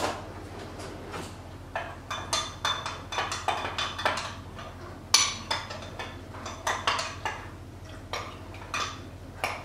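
A metal spoon stirring cream and milk in a glass measuring jug, clinking against the glass in an uneven run of two or three taps a second that starts about two seconds in.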